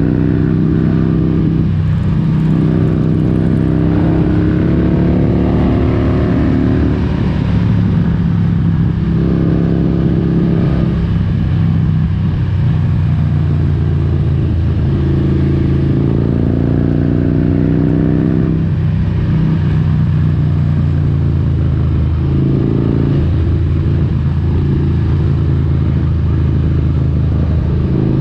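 Harley-Davidson Road King's fuel-injected V-twin engine and exhaust running steadily under way, its pitch rising and falling several times as the throttle is opened and eased.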